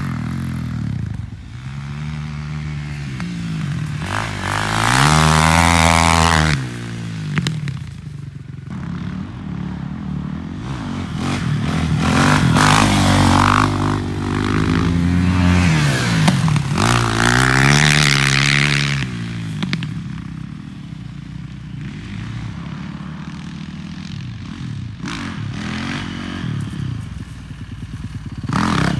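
Yamaha 450 dirt bike's single-cylinder four-stroke engine revving repeatedly through wheelies, its pitch climbing and dropping several times, then running steadier and lower near the end.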